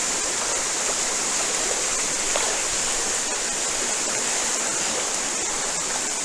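Small waterfall cascading over rocks into a creek pool: a steady rush of splashing water.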